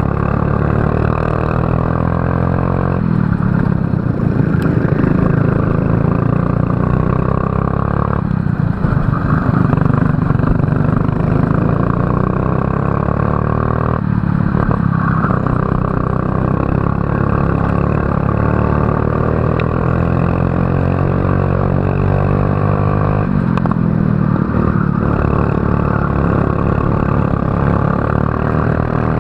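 Racing kart engine under hard throttle. Its pitch climbs steadily down the straights and drops sharply four times as the driver lifts for corners, then climbs again.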